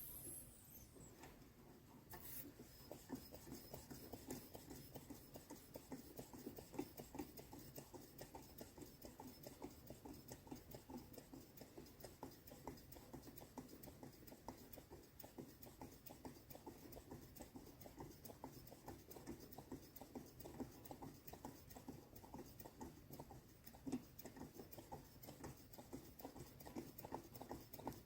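Faint, rapid, irregular pattering of small ticks, with one slightly louder tick near the end.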